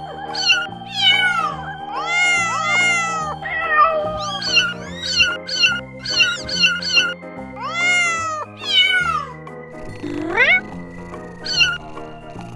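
Several very young kittens mewing over and over in high cries that rise and fall, sometimes overlapping, over background music. The mewing stops near the end.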